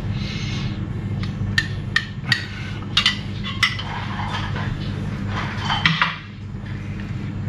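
A spoon clinking and scraping against a bowl as yogurt is spooned out into a cooking pot: a run of sharp clinks, over a steady low hum.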